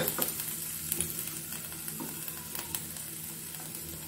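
Chopped tomato, onion and masala sizzling in hot oil in a nonstick pan, stirred and tossed with a slotted plastic spatula. The frying hiss is steady, with scattered light clicks and scrapes where the spatula meets the pan.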